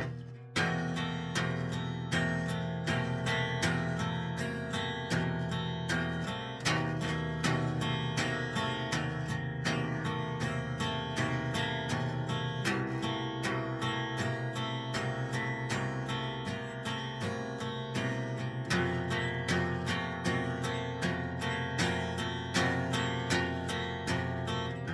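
Ambient music: a steady stream of plucked, guitar-like notes, about three a second, over sustained low bass notes that shift every few seconds.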